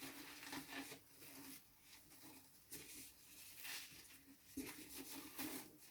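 Faint rustling of tulle netting being handled and knotted around an elastic band, with soft scattered crinkles and light ticks.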